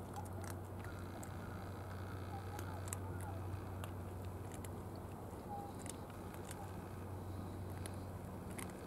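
A calico cat chewing food, with faint irregular clicks of its teeth and mouth, over a steady low rumble.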